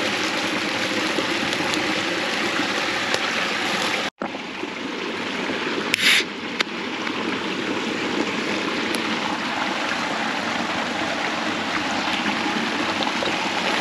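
A stream running, a steady rush of water. The sound cuts out for an instant a little after four seconds in, and a short, louder hiss stands out about six seconds in.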